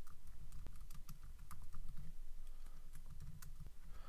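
Typing on a computer keyboard: a quick, irregular run of light key clicks as a short phrase is typed.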